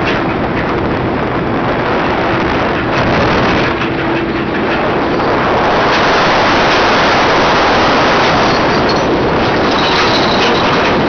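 Wind rushing on the microphone aboard a fishing boat, mixed with water churning alongside the hull and a faint steady hum. It gets louder about halfway through, as the water beside the hull foams.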